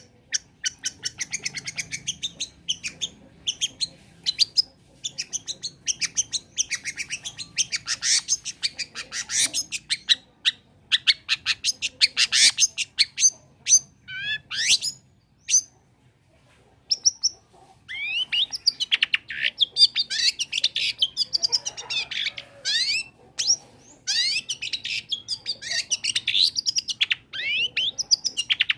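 Long-tailed shrike (cendet) in full song: a fast run of sharp chattering and clicking notes, a brief pause about halfway, then quick rising and falling whistles.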